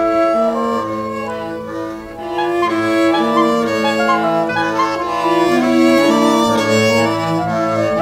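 Background music played by bowed strings, violin and cello lines holding overlapping notes that change every half second or so.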